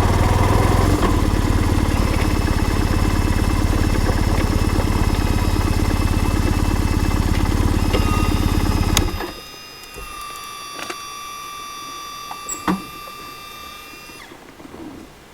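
BMW R1150R's flat-twin boxer engine idling steadily, then switched off about nine seconds in. After it stops there are a few faint clicks and a thin steady high whine.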